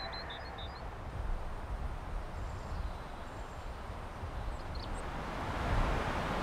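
Outdoor ambience: a steady low rumble of background noise, with a few faint bird chirps near the start and again about five seconds in.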